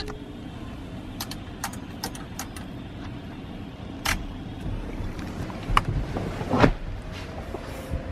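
Sharp clicks of push-buttons and switches on a fire truck's emergency lighting and siren control panel, over the steady low rumble of the idling truck. There are several quick clicks in the first few seconds, a few more later, and a louder knock about six and a half seconds in.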